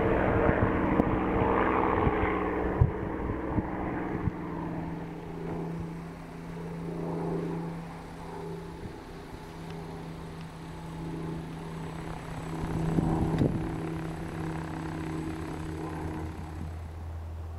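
Supermarine Spitfire T9's Rolls-Royce Merlin V12 engine and propeller in flight, a steady drone loudest over the first few seconds with a few sharp pops. The tone drops in pitch around four seconds in, then fades, swells once more near the end and fades again as the aircraft moves off into the distance.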